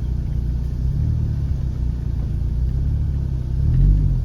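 Honda Jazz car's engine running under light throttle at low speed as the car creeps over a rocky track, its pitch wavering, with a short rise in revs about three and a half seconds in.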